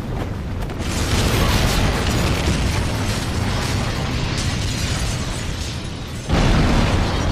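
Explosion sound effects: a dense, sustained rumble of blasts and fire that swells about a second in, then a louder blast near the end, as a burning aircraft falls in flames.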